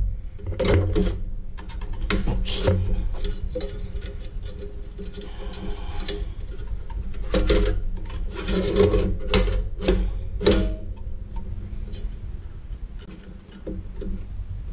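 Sheet-metal parts of an Allen-Bradley 8520 operator panel's chassis knocking, clicking and scraping as an LCD retrofit panel is handled and seated in the metal frame, with a steady low hum underneath. A longer scrape comes about five to six seconds in.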